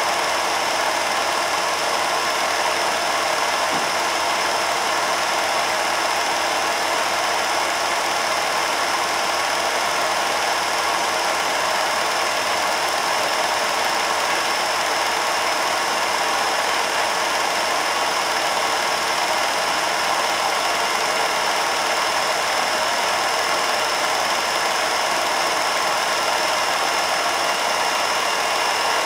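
Home-movie film projector running: a steady mechanical whirr and clatter with a thin high whine, unchanging.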